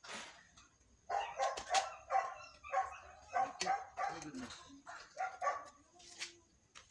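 A dog barking in quick groups of short, high yaps, again and again. A brief metallic scrape of tongs on the grill grate comes right at the start.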